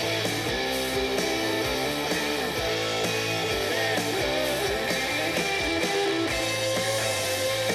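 Instrumental guitar music from a song, played back through the Akkord-201 stereo amplifier and loudspeakers and picked up by a camera microphone in the room.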